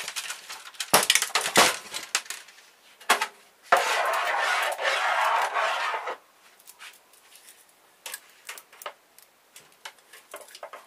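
Plastic printer parts handled on a wooden workbench during disassembly: a series of sharp knocks and clatters, a steady scraping noise for about two and a half seconds in the middle, then scattered light clicks.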